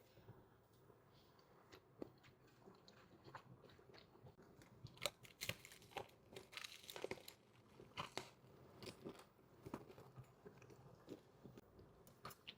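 A person biting and chewing food, with soft mouth clicks and sharper crunches that come thickest from about five to eight seconds in.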